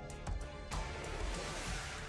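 Soundtrack music: a beat of sharp percussive hits that gives way, about three-quarters of a second in, to a sudden dense wash over held low notes.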